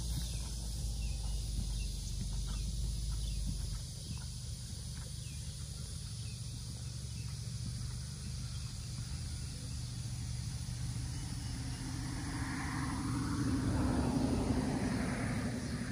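Outdoor ambience: wind rumbling on the microphone, heaviest in the first few seconds, over a steady high hiss. From about twelve seconds in a louder rumble swells and fades.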